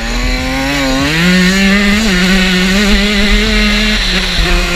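Dirt bike engine revving up through the first second, then held at steady high revs, easing off briefly about four seconds in before pulling again, with wind rushing over the helmet camera.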